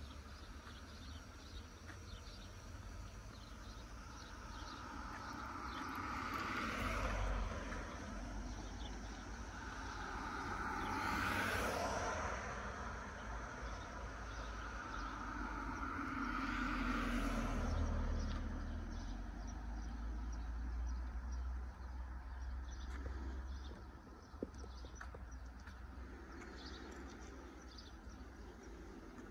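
Cars passing on the road one after another: three pass-bys that each swell and fade, about 7, 11 and 17 seconds in, over a steady low rumble. A quieter outdoor background follows near the end, with one short click.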